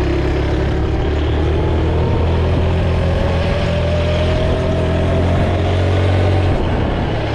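A vehicle engine running steadily, with a faint tone that rises slowly through the middle as it picks up speed.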